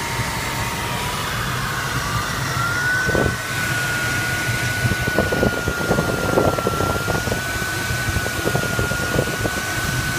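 Audio variometer in an Arcus M glider cockpit holding a steady tone that rises in pitch about two seconds in and stays there, over constant airflow rush. Scattered light crackles come through from about three to nine seconds in.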